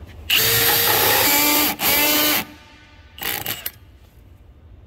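Milwaukee M18 Fuel 2904-20 hammer drill spinning a 2 3/8-inch hole saw into a wood block: a run of about a second and a half, a brief break, another half-second run, then a short burst about three seconds in. The saw only scores the wood and stops short, which the user puts down to the drill's clutch not being turned all the way to drill mode.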